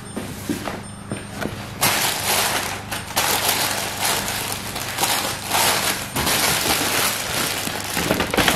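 Plastic grocery bags crinkling and rustling as groceries are handled and unpacked, with a few light knocks of items set down in the first two seconds before the crinkling sets in.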